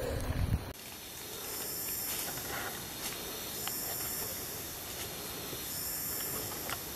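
Forest ambience: a steady hiss of insects buzzing high in slow swelling waves, with a few faint footfalls on leaf litter. A brief low rumble opens it and cuts off abruptly.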